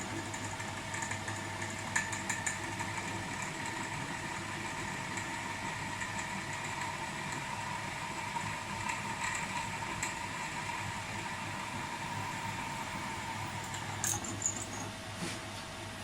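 Electric drill running steadily as it bores a hole in metal at a center-punched mark, with a few sharp clicks along the way.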